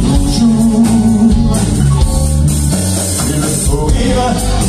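Live rock band with electric guitars, bass and drum kit playing a slow French song. The singer holds the last word of a line for about a second near the start, then the band plays on without vocals.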